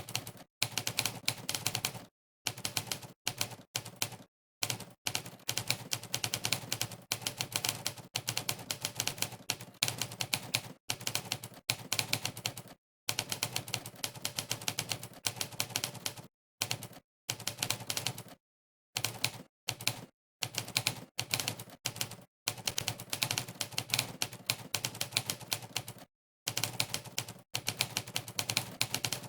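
Typewriter key strikes from Monkeytype's 'typewriter' sound effect, one clack per keypress during fast typing, in quick runs broken every few seconds by brief pauses of total silence.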